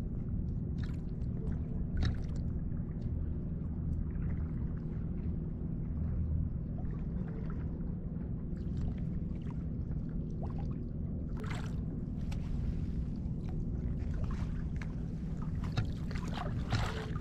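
Water splashing and sloshing at intervals while a fish is netted by a wading angler, strongest about eleven seconds in and near the end, over a steady low rumble with a faint hum.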